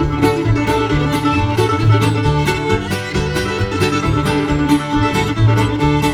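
Old-time string band playing a fiddle tune instrumentally: fiddle carrying the melody over strummed guitar, mandolin and a bass line walking between low notes in a steady beat.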